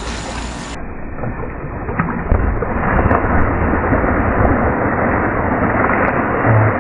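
Swimming-pool water splashing and sloshing right at the microphone, a loud rushing wash that grows louder about two seconds in.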